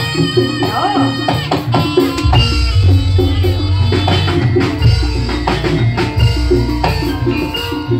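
Jaranan senterewe music: drums and percussion keep a steady beat under held pitched tones, and a deep bass comes in about two seconds in.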